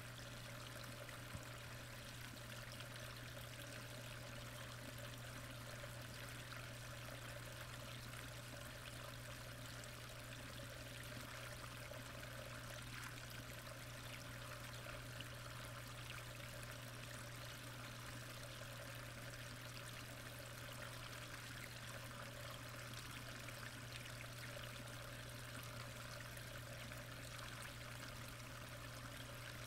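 Faint, steady running-water noise in a pond, heard from underwater, with a constant low hum beneath it.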